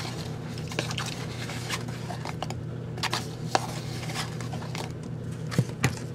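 Scattered light clicks and scrapes of a measuring spoon scooping and leveling baking soda, over a steady low hum.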